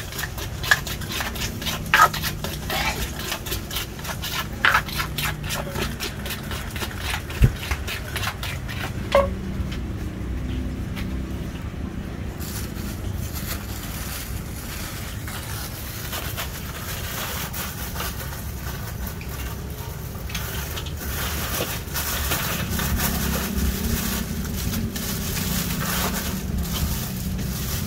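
Wooden pestle pounding in a clay mortar as papaya salad is made, with several sharp knocks in the first nine seconds. After that, plastic bags crinkle and rustle as ingredients are taken from a cooler.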